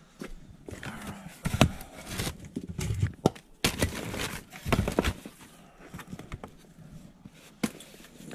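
Rummaging through a cardboard box of crumpled paper and small plastic items: irregular rustling and crinkling with scattered knocks and clatters, busiest in the first half.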